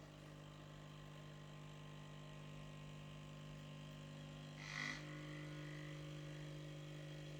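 Bosch Tassimo Style coffee machine running its pump as it brews a coffee disc: a faint, steady hum, with one short louder sound about five seconds in.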